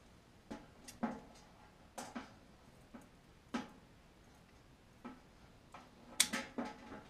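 Sharp clicks and snips from a hand wiring tool working a wire and its connector, about a dozen at irregular intervals, with a quick run of them near the end.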